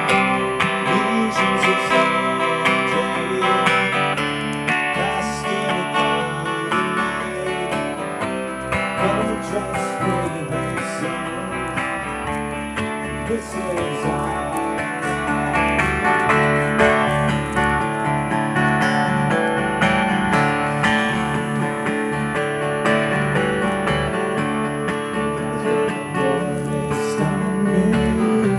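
Acoustic guitars played together in a live performance, strummed and picked through a continuous song.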